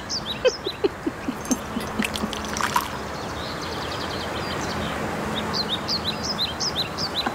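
Birds chirping throughout, short repeated tweets, with liquid poured from a teapot into a cup during the first second or so and a few light clicks a couple of seconds in.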